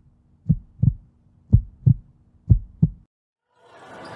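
Heartbeat sound effect: low double thumps, lub-dub, about once a second, four pairs, stopping about three seconds in. Near the end, basketball-gym crowd noise fades in.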